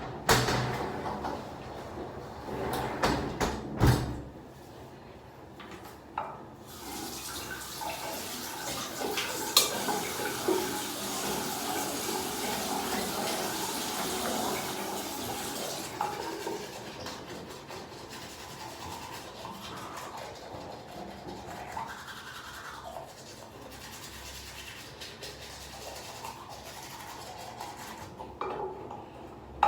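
A few sharp knocks and clatters, then water running steadily from a tap, fullest for about ten seconds and then quieter.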